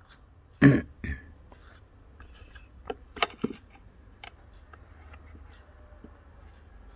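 Handling noises on a Cat 320D excavator monitor's plastic housing: a sharp thump about half a second in, then a few light clicks and knocks as its hinged keypad cover is flipped open, over a low steady hum.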